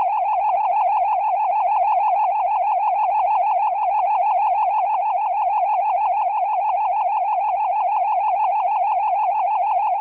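Synthesized cartoon magic sound effect: a steady electronic tone warbling quickly up and down in pitch, held without a break, with a faint low pulse about twice a second beneath it.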